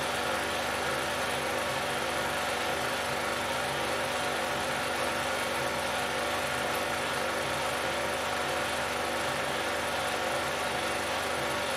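Steady mechanical whirr and hum of a 16mm film projector running, with an even hiss and no change in pace or level.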